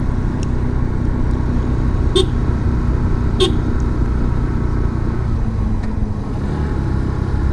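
Yamaha FZS V3's single-cylinder engine running steadily while riding, with two short sharp ticks about two and three and a half seconds in.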